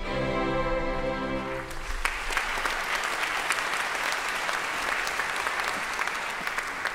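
Orchestra holding a final chord that stops about two seconds in, then an audience applauding.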